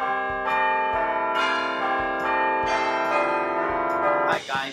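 Intro music of bell-like chimes, struck about twice a second with each note ringing on under the next, stopping about four seconds in.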